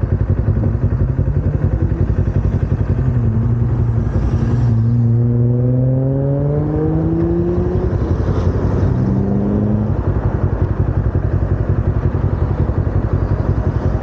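Kawasaki Ninja 250R's parallel-twin engine idling with a fast, even low pulse. About three seconds in, another vehicle's engine rises steadily in pitch as it accelerates past for about four seconds, and a shorter rising engine note follows around eight to ten seconds in.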